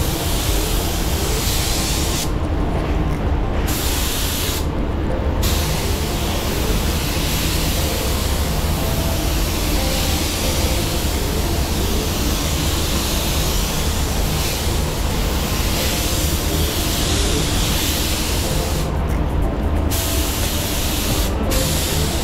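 Iwata WS-400 Series 2 spray gun hissing steadily as it lays down silver metallic base coat. The hiss cuts off four times when the trigger is let go: about two seconds in, around five seconds, near nineteen seconds and briefly near the end. A steady low rumble runs underneath.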